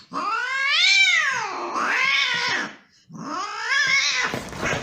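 A cat giving two long, drawn-out meows, the first rising and then falling in pitch.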